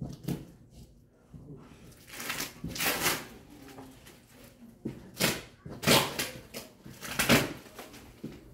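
Plastic packing wrap rustling and crinkling as it is handled, in several bursts, the longest starting about two seconds in.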